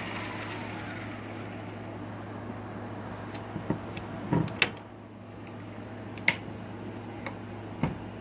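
Small electric motor of a model train locomotive whining and fading out in the first couple of seconds over a steady low hum, followed by several sharp clicks and knocks of the model being worked on the track.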